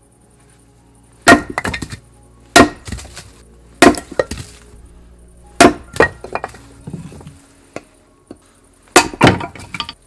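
Firewood being chopped: six sharp wooden cracks, each with a splintering rattle and smaller knocks after it, spaced one to three seconds apart, with the last two close together near the end.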